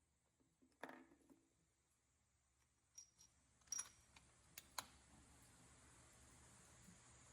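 Near silence broken by a few faint, sharp clicks and light taps: one about a second in, then a cluster between about three and five seconds in. No shot is fired.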